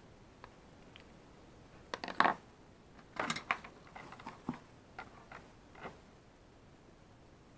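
Tools and small objects being handled on a workbench: a quick cluster of clatters and knocks about two seconds in, then a run of lighter clicks and rattles that thins out.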